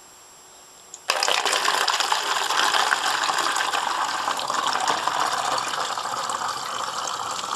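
Liquid algae culture poured through a plastic funnel into an empty 1.5-litre plastic bottle, splashing as the bottle fills. The pour starts suddenly about a second in and runs on steadily.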